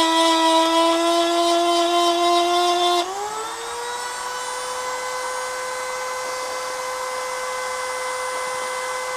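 Dremel rotary tool grinding into a Swiss Army knife's steel blade, a steady whine under load. About three seconds in the sound drops and the motor's pitch rises and settles higher, as the bit comes off the metal and spins free.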